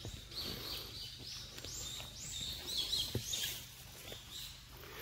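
A songbird singing a run of short, high, arching notes, about three a second, which stop near the end. One sharp knock comes a little after three seconds in.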